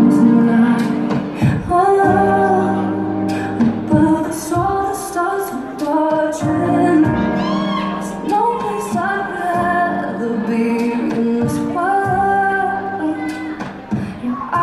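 Slow rumba song with a woman singing long, held notes over a steady percussion beat.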